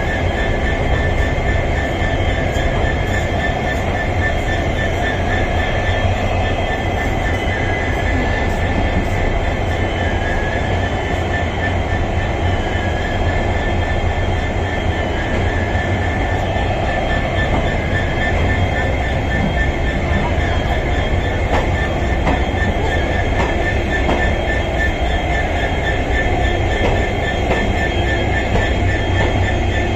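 Passenger train of ICF coaches rolling past as it pulls out of the station, the wheels rumbling steadily on the rails with a thin high squeal running through it.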